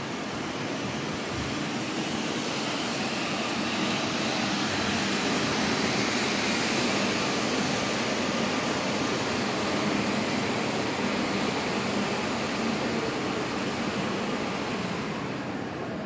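Steady rushing machine noise echoing in a station underpass, swelling in the middle with a faint high whine and fading near the end.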